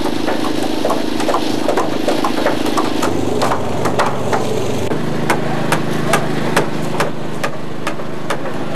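Repeated hammer blows on a timber roof frame, irregular and overlapping at first, then settling into about two strikes a second. A machine engine runs steadily underneath, its note dropping about halfway through.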